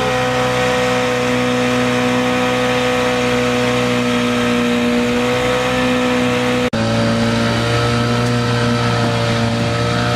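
Boat engine running steadily under way, heard on board over a hiss of wind and water. There is a brief break about two-thirds through, after which the engine note sits slightly lower.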